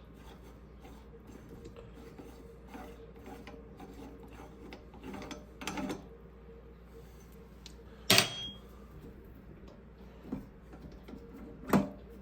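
Metal parts of a meat grinder head being handled and worked loose: rubbing and small clicks, a scrape, then two sharp metal knocks about four seconds apart, the first and loudest with a brief ring, over a steady low hum.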